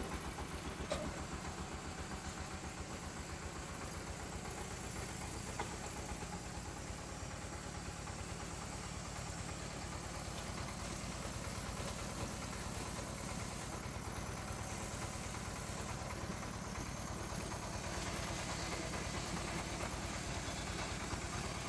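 Floating fish-feed pellet extruder machine running steadily, its drive giving a fast, even low pulse.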